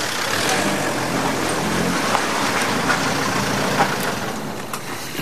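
A car driving slowly in and pulling up, its engine running at low speed with tyre noise and a few small clicks; the sound dies down near the end.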